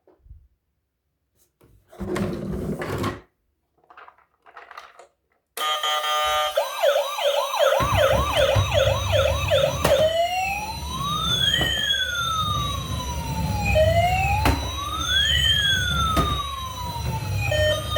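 Toy emergency vehicle's electronic siren switched on after a few brief handling noises: first a fast yelp of quickly repeating rising sweeps, then a slow rising and falling wail, over a low rumble. Near the end a beeping tune starts.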